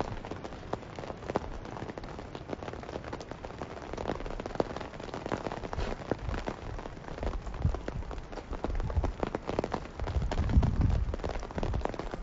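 Rain falling, with many separate drops striking hard surfaces close by. A low rumble rises near the end.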